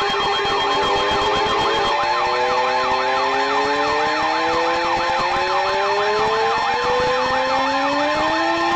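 Emergency alert tones from weather and EAS radio broadcasts, several at once: a warbling siren-like alarm sweeping up and down about three times a second over steady alert tones, with slow rising siren glides layered on top.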